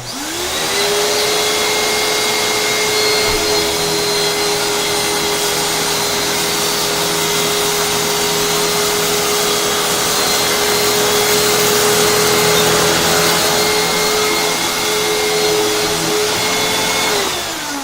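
Hoover WindTunnel upright vacuum cleaner switched on, its motor whine climbing quickly to a steady pitch and running on the medium setting as it vacuums rice off carpet. Near the end it is switched off and the whine falls away as the motor winds down.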